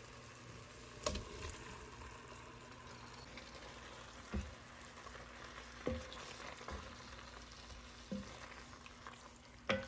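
Shrimp going into a simmering tomato-onion curry base in an enameled pot and being stirred with a wooden spoon: a faint steady sizzle, with about six light knocks of the spoon against the pot.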